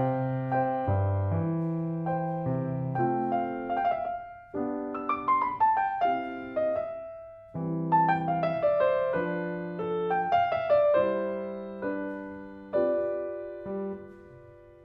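Background piano music: a gentle melody of single struck notes that ring and fade, with two falling runs of notes in the middle.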